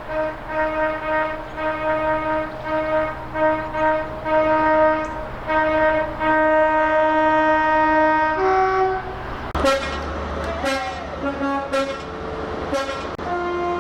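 Train horns. One horn sounds a single note in a quick series of short toots for about eight seconds. Then a different train's two-tone horn sounds, switching between higher and lower notes over the rushing noise of the passing train.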